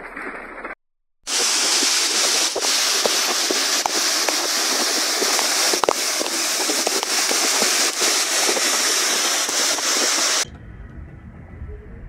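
Heavy rain pouring and streaming down: a loud, steady hiss with scattered sharp taps. Near the end it cuts to a much quieter low rumble.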